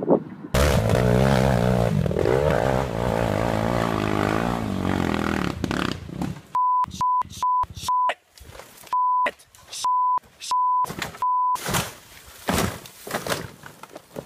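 An ATV engine running and revving, its pitch wavering up and down, for about five seconds. It is followed by a string of about eight steady single-pitch bleeps, the kind used to censor swearing.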